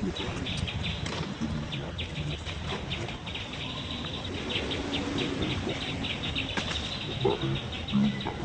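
Rapid high-pitched chirping that keeps on over a low background rumble, with a few short lower calls near the end.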